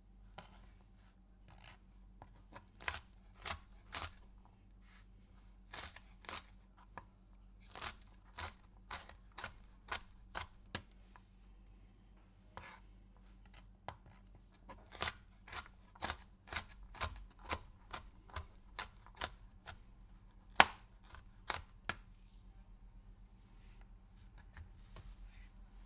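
Knife cutting through a pepper: a series of crisp, sharp cutting strokes, mostly about two a second in uneven runs with short pauses between, one stroke about two-thirds of the way through louder than the rest.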